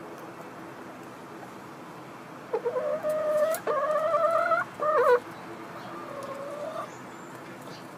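Chicken calling: a drawn-out, slightly rising call in three joined parts about two and a half seconds in, then a fainter call near the seven-second mark.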